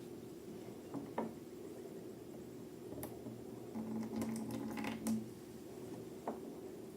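Slime and balloons being handled by hand: scattered soft squishes and crackly clicks, several in a row about four to five seconds in, over a low steady hum.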